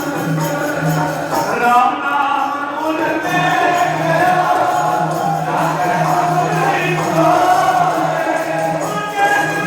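Group devotional singing of Sikh Gurbani, with the voices carried over steady instrumental accompaniment and jingling percussion.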